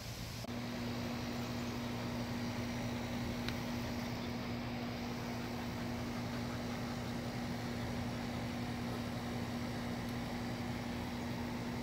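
A steady mechanical hum with a constant low drone, setting in about half a second in.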